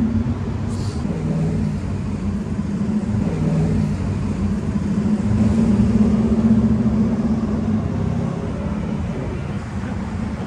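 City street traffic: motor vehicle engines running close by, a low steady sound that swells about halfway through and eases off toward the end.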